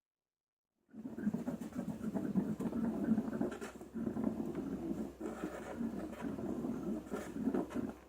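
Slime being worked by hand, a dense run of wet squishing and crackling that starts about a second in.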